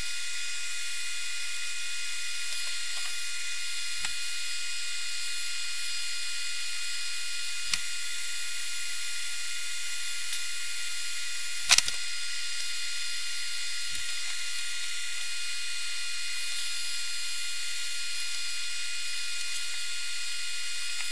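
Steady high-pitched whine and hiss of a small motorised tool, with four faint clicks, the loudest about halfway through.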